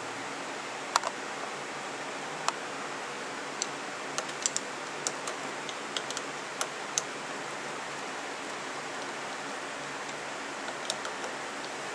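Scattered sharp metallic clicks, about fifteen, most of them between one and seven seconds in, over a steady hiss: a screwdriver tightening the cover screws of a Carter six-screw mechanical fuel pump.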